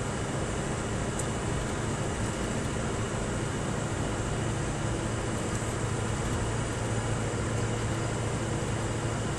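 Scania R620 truck's 16-litre V8 diesel running steadily under way, a low even drone heard from inside the cab.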